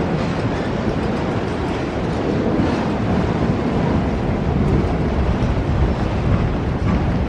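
Train running past at close range: a steady rush of wheel and rail noise, with wind on the microphone.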